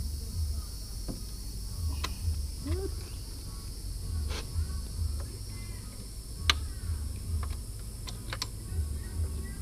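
Irregular sharp clicks and clinks of hand tools and loose parts being worked on a car, over a steady high-pitched hiss.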